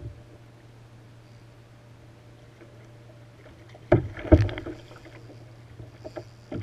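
Two loud knocks on a plastic kayak's hull about four seconds in, with a few lighter knocks near the end, over a steady low hum.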